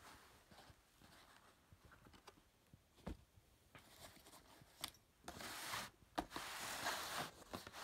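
Rustling and rubbing of items being handled and unpacked from a box, with a few light knocks. The rustling grows louder in the second half.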